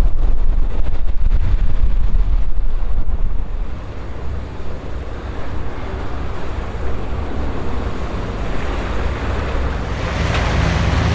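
Wind buffeting the microphone over the wash of the sea. It is strongest for the first few seconds and eases off after about four seconds.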